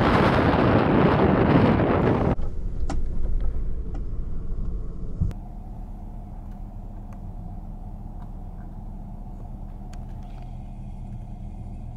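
Loud rush of wind buffeting the microphone over roaring floodwater at the falls, cut off abruptly about two seconds in. Then a much quieter, steady low vehicle rumble with a faint hum.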